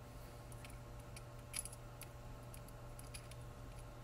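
Scattered faint clicks and light taps of small plastic and metal parts as an RC scale transmission gear case is pulled apart by hand, the most distinct about one and a half seconds in, over a steady low hum.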